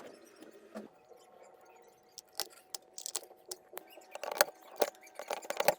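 Sharp clicks and taps of small hard parts being handled. They are sparse at first and come quickly one after another near the end.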